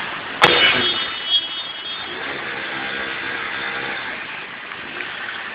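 Road vehicles running on a flooded street, with a steady wash of traffic noise and a sharp knock about half a second in.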